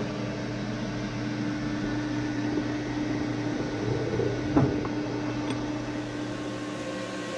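Manual metal lathe running with a steady motor and gear hum, with one short sharp clank about four and a half seconds in.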